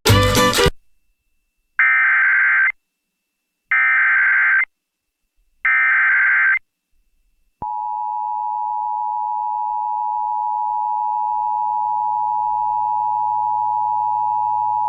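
Emergency Alert System relay opening a severe thunderstorm warning, over FM radio: three bursts of SAME header data, each a harsh digital warble about a second long, spaced about two seconds apart. About seven and a half seconds in, the steady two-tone EAS attention signal (853 and 960 Hz) starts and holds. A short snippet of other broadcast audio plays right at the start.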